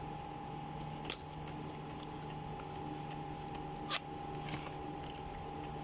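Two sharp clicks of hand tools or parts being handled in a car's engine bay, a small one about a second in and a louder one about four seconds in, over a steady background hum.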